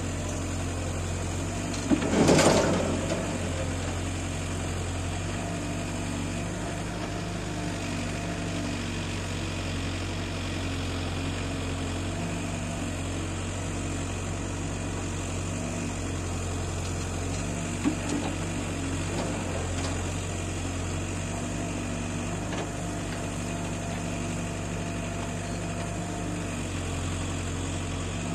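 A backhoe loader's diesel engine running steadily while it loads a tractor trolley, its note easing and swelling a few times as the arm works. A bucketload of soil crashes into the metal trolley about two seconds in, with a smaller clatter later on.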